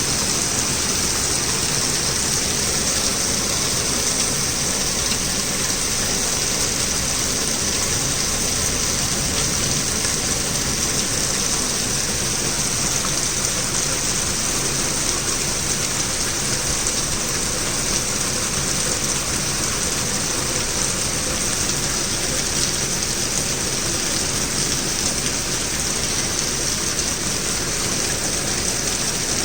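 Torrential rain falling steadily, a dense, even hiss with no let-up.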